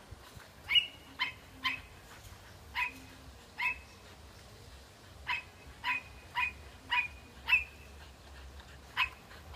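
A dog barking, about eleven short, sharp barks in irregular bursts, at goats across a fence.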